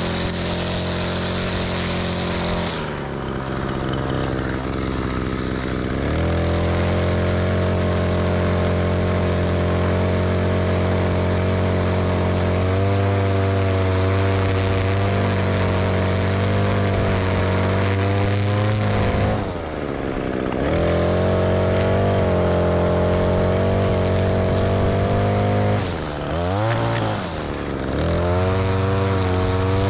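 String trimmer running at high speed while edging along a concrete sidewalk. Its speed dips and picks back up about three seconds in, again about two-thirds of the way through, and twice in quick succession near the end.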